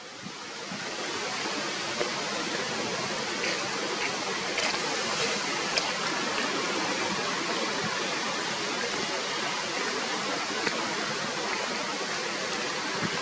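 A steady rushing hiss of outdoor noise that swells about a second in and then holds even.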